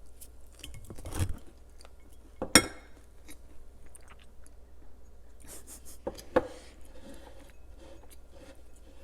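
Close-miked chewing and crunching of food, with scattered small clicks and a loud sharp crunch about two and a half seconds in and another about six seconds in.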